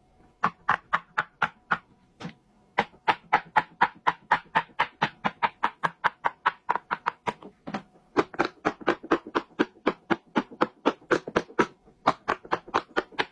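Bubbles of a large silicone push-pop fidget toy pressed one after another in quick succession: a steady run of sharp pops, about five a second, with a brief pause about two seconds in and another near the end.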